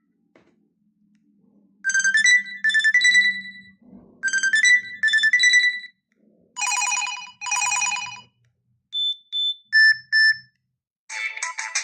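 LG KE970 mobile phone playing short electronic ringtone and alert tones. There is a quick chiming phrase of rising notes played twice and then repeated, then two longer chord-like blasts, then a few short paired beeps near the end.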